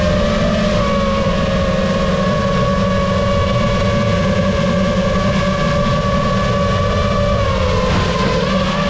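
FPV quadcopter's brushless motors (Lumenier Zip V2 2407, 1700kv, on 6S) and 5.1-inch props whining steadily in flight, the pitch dipping and then climbing back near the end.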